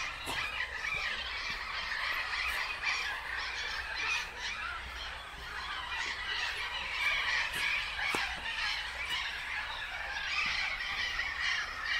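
A continuous, dense chatter of many birds calling at once, with a few sharp clicks.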